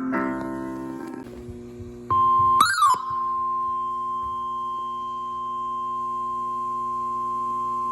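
A musical chord fades out over the first two seconds. Then a steady high single-pitched tone, the NOAA Weather Radio 1050 Hz warning alarm tone, starts, with a brief rising-and-falling chirp just after it begins, and holds unbroken. The tone signals that a warning message is about to be broadcast.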